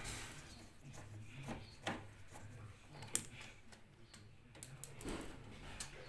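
A few light clicks and taps, with one sharper click about three seconds in, as parts are handled at a washing machine's empty drain pump opening.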